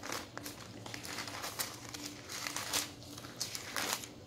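Thin Bible pages being leafed through, rustling irregularly, over a faint steady hum.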